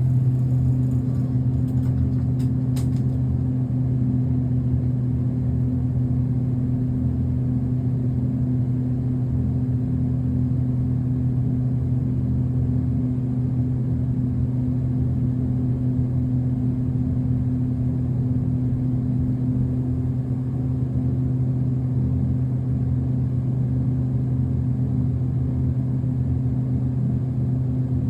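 Steady hum and rumble of a Dover traction service elevator travelling up, heard from inside the cab, with a few light clicks in the first few seconds.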